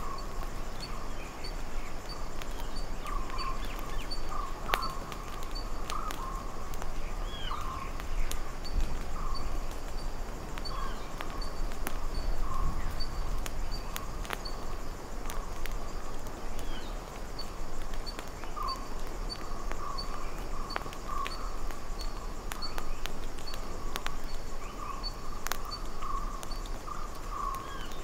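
Early-morning tropical seasonal forest ambience: many birds calling in short, repeated notes, with a steady high ticking, scattered sharp clicks and a low rumble underneath.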